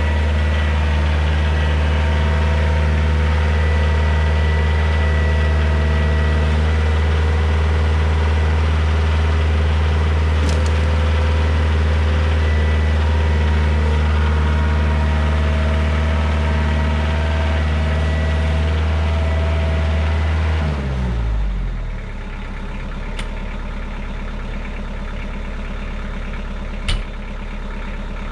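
Kioti DK40se compact tractor's diesel engine running steadily at raised revs, then throttled down about three-quarters of the way through, its pitch falling to a lower, steady idle. A single sharp click near the end.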